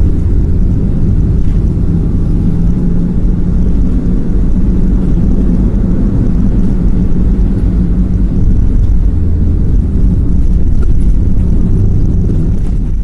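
Steady low rumble of a moving car's engine and road noise, heard from inside the cabin.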